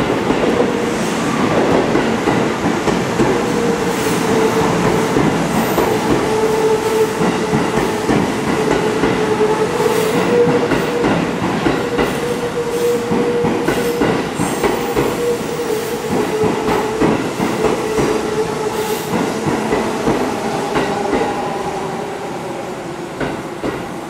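Seibu 4000 series electric train rolling slowly alongside the platform as it arrives, wheels clicking over the rail joints under a steady whine. It grows quieter near the end as the train slows toward a stop.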